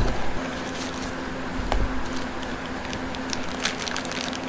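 Small clicks and light rustling of parts and packaging being handled, with a dull knock about two seconds in, over a steady low hum.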